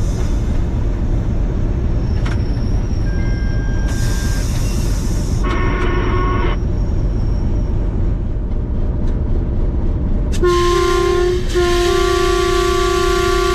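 HBU20 diesel-electric locomotive running steadily, heard from inside the cab over the track noise. Its horn gives a short note about six seconds in, then a longer, louder blast from about ten seconds in, briefly broken a second later.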